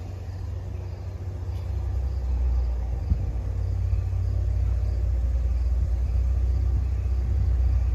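An approaching diesel-hauled NJ Transit commuter train: a low rumble that grows louder over the first few seconds and then holds steady.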